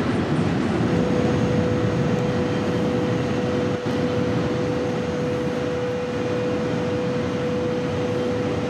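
Steady rushing noise of the V150 TGV test train running flat out at about 553 km/h, with a steady high whine that comes in about a second in and holds.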